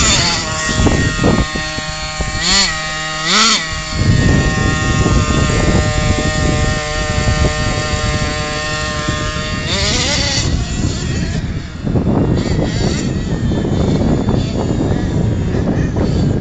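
Small nitro glow engine of a CEN Genesis RC monster truck idling with a steady high-pitched tone. It is blipped in quick revs about two and a half and three and a half seconds in, and again about ten seconds in. After about eleven seconds the steady tone gives way to a rougher, noisier sound.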